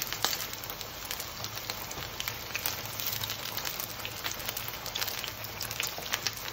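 Flour-and-pepper-coated paneer cubes shallow-frying in hot oil in a pan: a steady sizzle with many small scattered pops.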